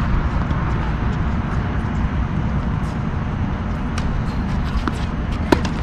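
Steady low rumbling background noise, with a few sharp knocks of a tennis ball off racquet or court in the second half; the loudest comes near the end.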